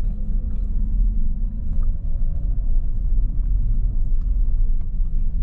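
Steady low rumble of a pickup truck driving on a dirt road, heard from inside the cab: tyre and road noise with a steady engine drone underneath and a few faint ticks.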